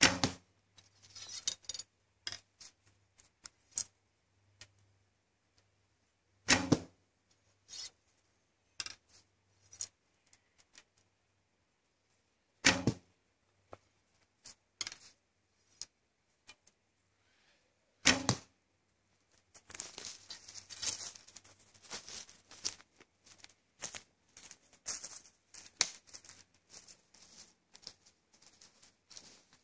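Four shots from a 55 lb Greatree Highlander recurve bow, about six seconds apart, each a sharp snap, with small clicks and rattles of arrow handling in between. After the fourth shot, footsteps crunch through dry leaves and twigs to the end.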